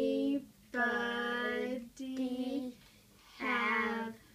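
A child's speech drawn out very slowly, syllable by syllable ("...anybody have..."), each syllable held on a level, sing-song pitch with short breaks between, as in a slow-speech therapy drill.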